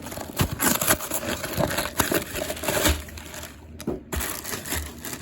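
A cookie package being handled: irregular crinkling and rustling with small knocks and clicks.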